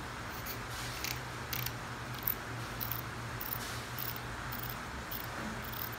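Grip of a CNC Q5 tattoo pen being twisted on its threaded body, giving a series of light, high-pitched clicks about every half second.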